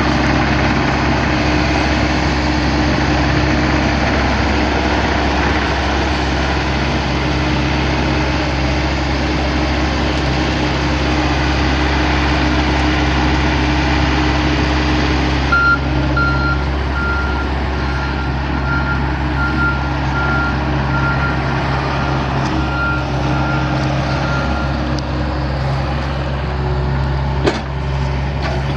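Mini excavator's diesel engine running steadily. From about halfway in, a high beeping alarm repeats for roughly ten seconds and then stops. A single knock comes near the end.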